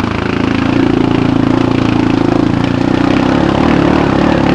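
Arctic Cat ATV engine running steadily under load as the quad pushes through deep mud, its pitch rising a little about half a second in and then holding.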